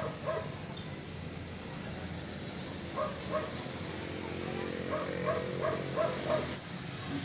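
A dog barking in short bursts over a steady low background hum: two barks at the start, two about three seconds in, then a quick run of about six barks past the middle.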